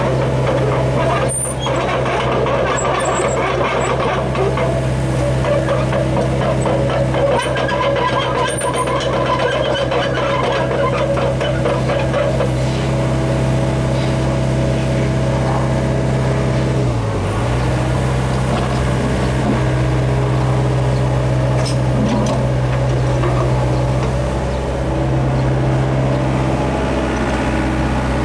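Hyundai R55 excavator's diesel engine running steadily with its hydraulics, a low hum with steady higher tones over it. Its pitch dips briefly about two-thirds of the way through, then recovers.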